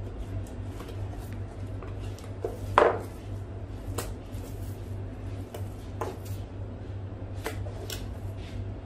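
A butcher's knife knocking and tapping on a plastic cutting board while raw beef is trimmed. A few scattered knocks, the sharpest and loudest about three seconds in, over a steady low hum.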